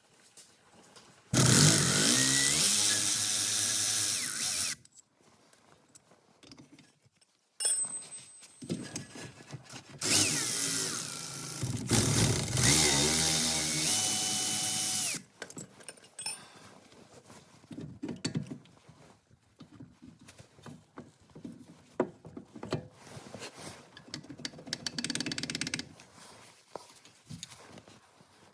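A cordless power drill runs twice, each time quickly rising in pitch and then spinning steadily for a few seconds before stopping, the second run longer. Light clicks and knocks of tools being handled sound between and after the runs.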